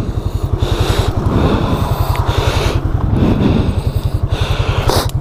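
Can-Am Outlander ATV's single-cylinder engine idling with an even low putter of about a dozen pulses a second. Irregular rustling and scraping sounds play over it.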